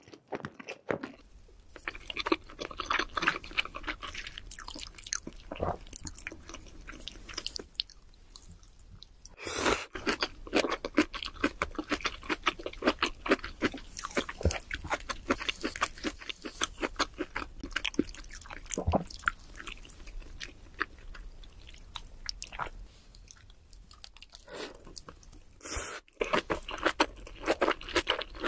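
Close-miked eating sounds: people chewing and crunching food, with dense crackly mouth clicks, recorded in ASMR mukbang style. The sound changes abruptly a few times where one eater's clip cuts to another's.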